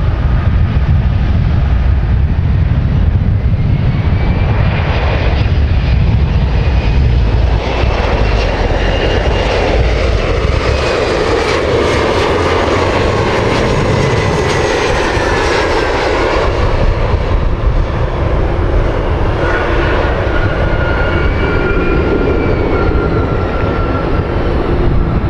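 Jet airliner passing close: a deep rumble gives way to its engines' whine, with tones that rise and then fall in pitch as it goes by.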